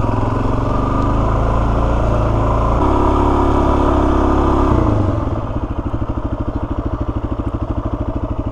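Suzuki DR-Z400S single-cylinder dual-sport motorcycle engine running steadily, then about five seconds in it drops off and settles into an even, pulsing idle.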